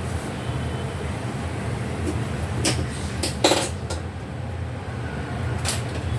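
Steady low rumble of a moving vehicle heard from inside, with a few short knocks and rattles about halfway through.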